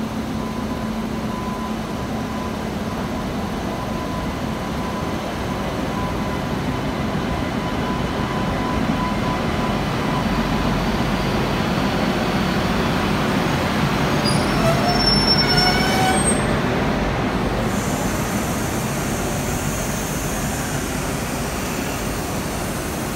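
Indian Railways electric locomotive and its passenger coaches rolling slowly past alongside a platform as the train pulls in. Wheels and coaches run steadily, growing louder toward the middle. A thin steady whine carries through about the first ten seconds, and a short rising squeal comes about fifteen seconds in.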